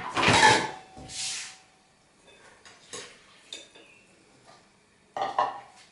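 Kitchen handling sounds as a cup of water goes into a glass bowl of dry cake ingredients: two short loud noisy bursts in the first second and a half, then light knocks and clinks of a plastic measuring cup and the bowl, with a couple of sharper knocks near the end.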